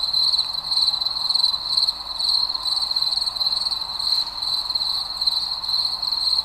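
A dense chorus of farmed crickets chirping together in their rearing boxes: a steady, high, rapidly pulsing trill with no pauses.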